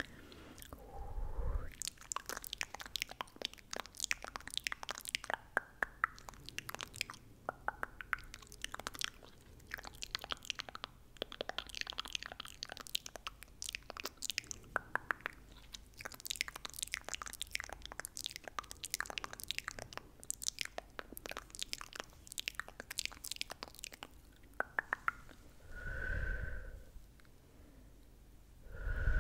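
Close-miked ASMR mouth sounds: a dense, uneven string of wet tongue clicks and mouth smacks with short pauses, and a brief soft vocal sound near the end.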